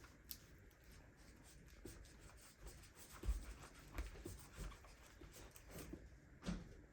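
Faint handling noise: scattered small taps, scrapes and rubbing, with a louder knock about three seconds in and another near the end.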